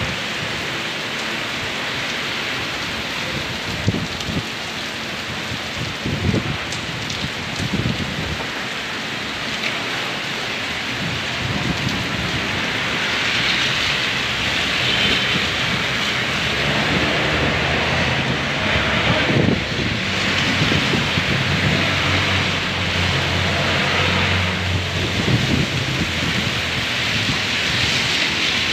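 Heavy rain pouring steadily onto a street and pavement, a dense hiss that grows louder about halfway through, with occasional low rumbles underneath.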